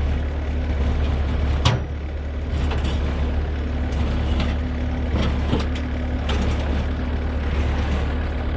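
Heavy diesel engine of the recovery equipment running steadily while the rolled dump truck is winched upright, with a sharp click about two seconds in and a few fainter clicks after.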